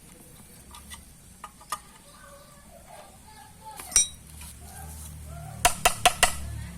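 Metal parts and hand tools clinking and clicking during a repair: scattered light clicks, one ringing metallic clink about four seconds in, and a quick run of four or five clicks near the end.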